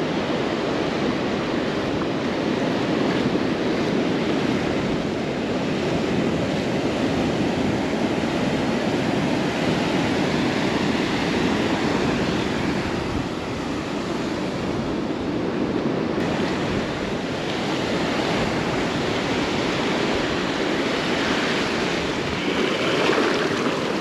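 Ocean surf: small waves breaking and foam washing up a flat sand beach in a steady rush.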